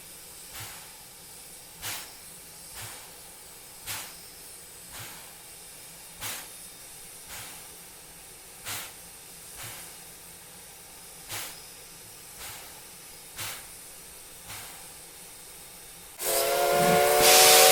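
Steam locomotive standing and hissing, with short puffs of steam about once a second. About sixteen seconds in, its steam whistle blows loudly as a chord of several notes.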